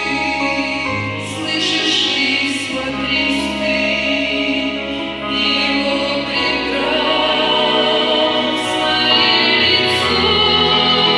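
A church worship song: voices singing long held lines over instrumental accompaniment with a steady bass.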